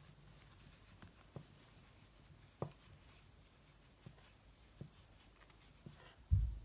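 Crochet hook working cotton yarn into triple crochet stitches: soft handling noise with about five faint, sharp clicks spread out, and a dull low thump near the end.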